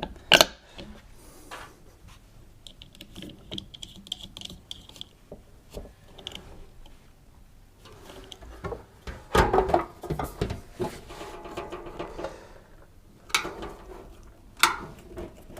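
Scattered clicks and knocks of tools and plastic and metal parts being handled as a tumble dryer's fan, fan nut and heater cover are refitted. There is a busier run of clatter a little past the middle.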